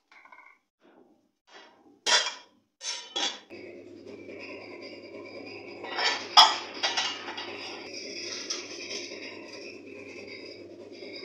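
Metal cooking pot and lid clattering and clinking several times, with a loud sharp clank about six seconds in. From about three and a half seconds the portable gas burner under the pot runs with a steady hiss and a low hum.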